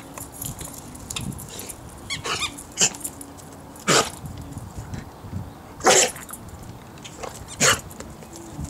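Brittany Spaniel giving about five short, sharp barking sounds a second or two apart. The two in the middle are the loudest.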